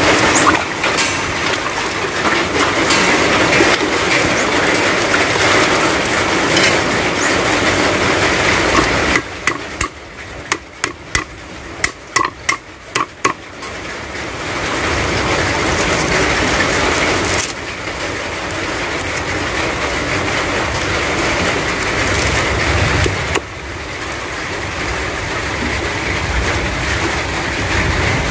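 Cleaver chopping lemongrass stalks on a wooden cutting board: about a dozen quick, sharp chops in the middle, over a steady loud rushing noise that fills the rest.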